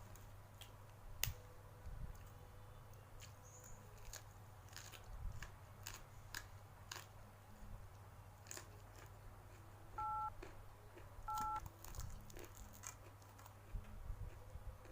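A person chewing and biting close to the microphone while eating fried mujair fish with raw papaya leaves, with scattered small crunches and clicks. Two short, identical electronic beeps sound about ten seconds in, a little over a second apart.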